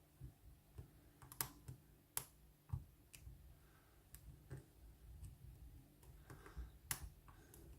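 Faint, irregular small clicks of a lock pick and tension tool working the pins of a Lockwood oval pin-tumbler lock with spool pins, a few sharper clicks standing out.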